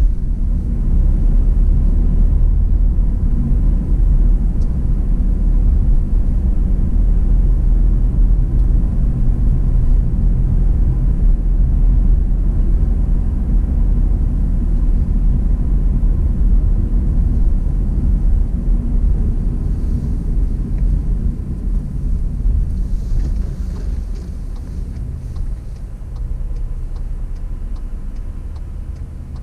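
Car driving, a steady deep rumble of engine and road noise heard from inside the cabin, easing off a little near the end, with faint light ticks over the last few seconds.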